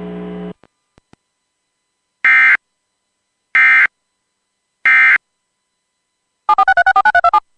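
Three short bursts of EAS SAME digital data tones, each a fraction of a second long and about a second apart: the end-of-message code that closes a NOAA Weather Radio alert. A low radio hum cuts off just before, and near the end comes a quick run of warbling two-pitch beeps.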